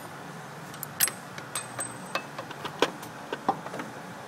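Irregular metallic clinks and taps of hand tools and loose metal parts being worked during an engine teardown, several sharp strikes with a brief ring, over a low steady background hum.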